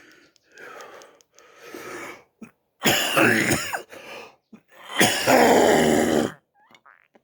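A man coughing: a few softer coughs, then two long, loud bouts of coughing about three and five seconds in.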